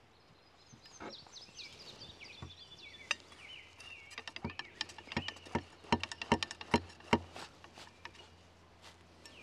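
A cleaning rod with wet patches on its jag worked up and down inside a muzzleloading shotgun barrel, a quick run of knocks and taps that stops about seven seconds in. Birds sing in the background.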